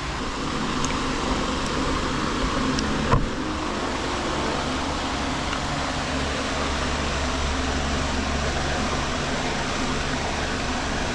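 Steady mechanical drone of running machinery, with one sharp knock about three seconds in.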